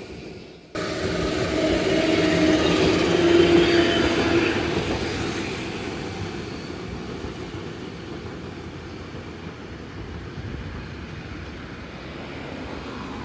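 Two-car Randen (Keifuku Electric Railroad) streetcar, Mo 501 coupled with Mo 106, running past on street track: the sound swells to its loudest a few seconds in and then fades slowly as the tram moves away. The sound cuts out briefly under a second in.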